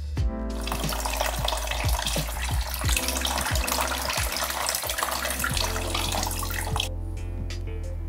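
Tap water running onto a stainless-steel espresso portafilter and filter basket as they are rinsed. The stream starts about half a second in and stops about a second before the end, over background music.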